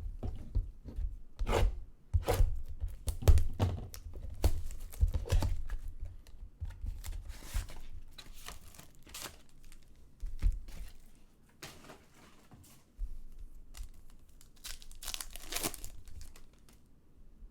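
Trading card packaging being torn open and crinkled by hand, in irregular bursts of tearing and crackling, with the busiest stretches in the first few seconds and again near the end.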